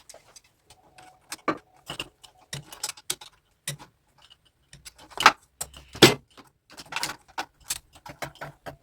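Irregular clicks, knocks and metallic clinks of hand bidet sprayer fittings and tools being handled during installation, with two louder knocks about five and six seconds in.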